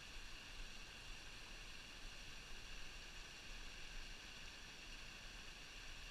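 Faint, steady rushing hiss of a small waterfall some distance away, with no other events.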